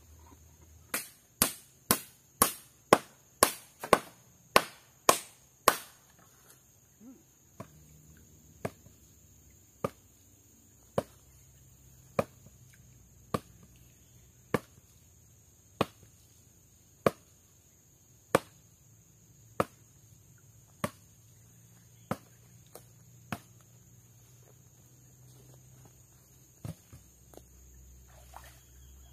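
Repeated sharp blows on wood: about ten quick, loud strikes at roughly two a second, then a slower, quieter run of single strikes a little over a second apart that stops several seconds before the end.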